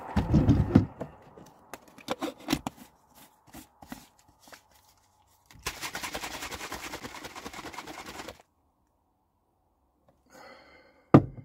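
Plastic shaker bottle of protein shake shaken hard for about three seconds in the middle, a fast, even run of rattling strokes. Before it come clicks and knocks of handling the bottle and lid, with heavy knocks at the start and a sharp knock near the end.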